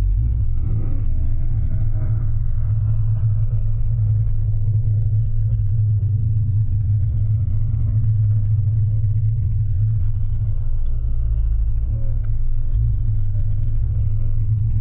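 Steady low rumble of a car on the move, heard from inside the cabin: road and engine noise picked up by a camera behind the windshield.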